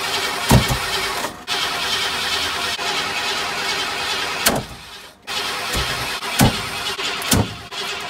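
A 460 big-block V8 turned over by its starter without catching. The cranking breaks off briefly about five seconds in, then starts again, and about four sharp thumps sound through it. After this attempt the engine's ignition timing is called badly off.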